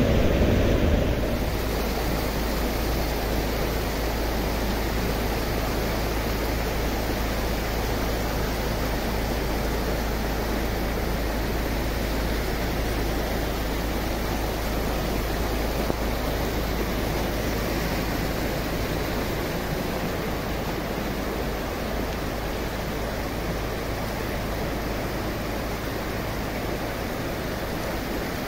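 Floodwater rushing across a mountain road, a steady rush of water. A vehicle splashes through the water in the first second, then fades.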